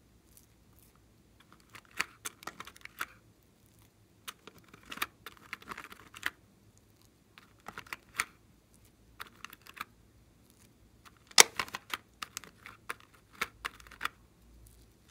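Plastic applicator scraping and tapping in the pans of a plastic toy makeup palette: short bursts of light clicks and scratches with quiet gaps between.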